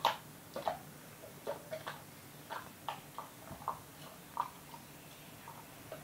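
A golden retriever mouthing and chewing a Greenies dental chew: a faint, irregular run of short wet clicks and crunches from its jaws and lips, the loudest right at the start.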